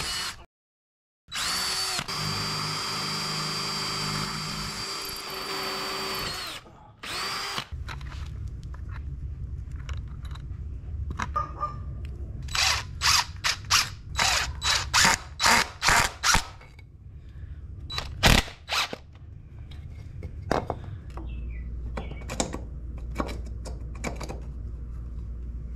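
Cordless DeWalt 20V drill running steadily with a high whine as it bores through pre-drilled holes in a wooden block into a concrete-block wall, winding down after about seven seconds. A run of short sharp bursts and scattered clicks follows over a low hum.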